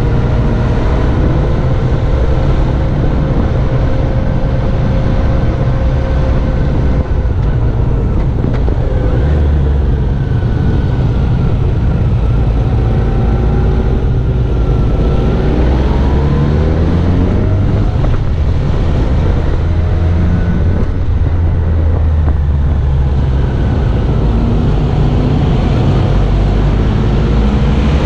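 Motorcycle engine running under way on a mountain road, its pitch rising and falling with the revs and climbing about halfway through, over heavy wind rumble on the microphone.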